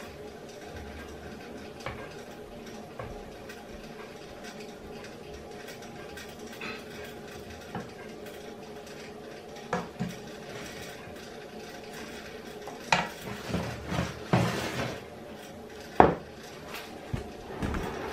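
A metal ladle clinking and scraping against a ceramic bowl and a stainless steel pot while thick purée is served, with a few sharp knocks, loudest and most frequent in the second half. A faint steady hum sits underneath.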